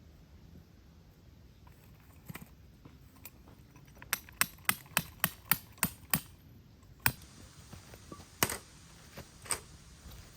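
A quick run of about eight sharp clicks or taps, roughly four a second, then three more spaced about a second apart.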